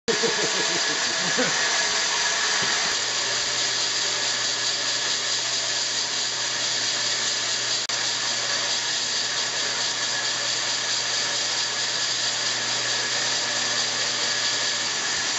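Chainsaw running under load as it cuts through a hinoki log, its engine pitch wavering in the first couple of seconds and then holding steady.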